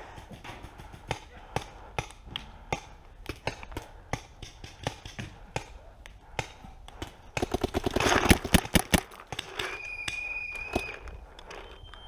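Paintball markers firing: scattered single shots throughout, then a fast string of shots about eight seconds in.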